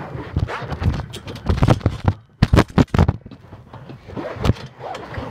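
Irregular thumps and rustling scrapes from a phone jostled about while its holder bounces on a trampoline, with the loudest knocks about two and a half to three seconds in.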